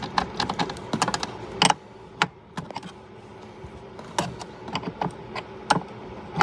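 Irregular sharp clicks and taps of a small screwdriver and fingers working a terminal inside a metal electrical enclosure: a quick cluster of clicks in the first two seconds, then single clicks every second or so.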